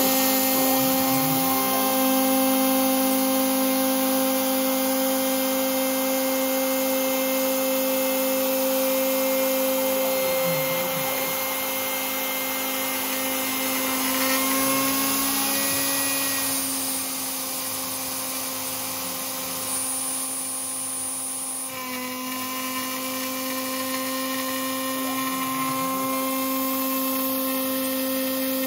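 Rat Rig KillerBee CNC machine milling aluminium: the spindle whines steadily while the end mill cuts, over a constant hiss. It drops a little in loudness for a few seconds past the middle, then carries on as before.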